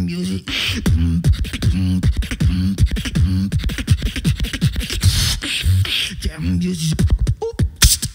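Beatboxing into a handheld microphone: a fast beat of deep kick drums that drop in pitch, held bass tones, and hissing snare and hi-hat sounds.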